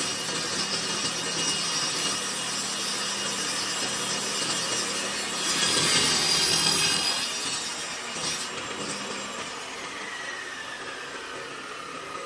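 Table saw cutting through plywood on a crosscut sled: a steady saw noise, loudest about six seconds in. The noise eases afterwards, and near the end a whine falls in pitch.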